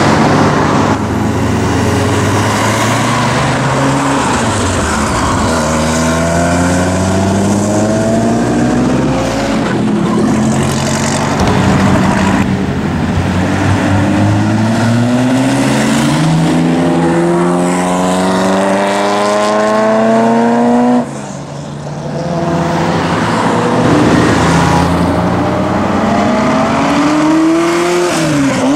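Ferrari F40 twin-turbo V8 engines accelerating hard one car after another, each engine note climbing steeply through the gears. One car's run cuts off suddenly a little after two-thirds of the way through, and another revs up and falls away near the end.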